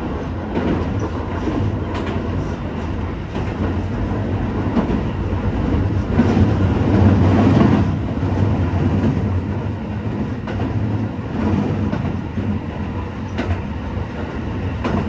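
Shin-Keisei Line local train running between stations, heard from inside the carriage: a steady rumble of wheels on rail with a few sharp clicks of rail joints, swelling louder about six to eight seconds in.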